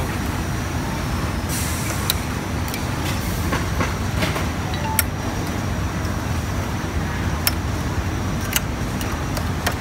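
Sharp metal clicks, a few scattered throughout, from a screwdriver and moving parts inside an open industrial flatlock sewing machine being adjusted by hand. Under them runs a steady low rumble of background noise.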